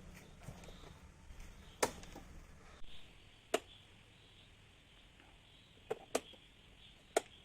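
About six short, sharp clicks spaced irregularly over a faint steady hiss.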